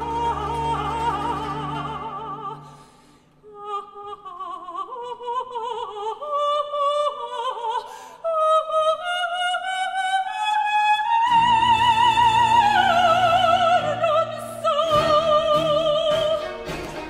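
A woman singing a baroque opera aria with orchestra, her voice carrying a wide vibrato. The orchestra holds a chord and breaks off, and she sings a run of notes alone. About eleven seconds in the orchestra comes back under her long held notes.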